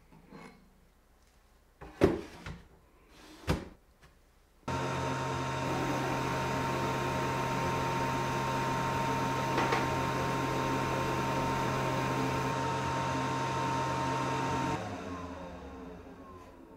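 Two sharp knocks, then an Atezr L2 24W diode laser engraver running while it engraves hardened steel: a steady machine hum with a constant high whine. About fifteen seconds in it winds down, the pitch falling as it fades.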